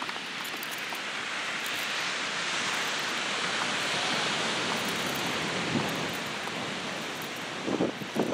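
Ocean surf washing onto the beach: a steady hiss that swells to a peak about halfway through and eases off. A few gusts of wind buffet the microphone near the end.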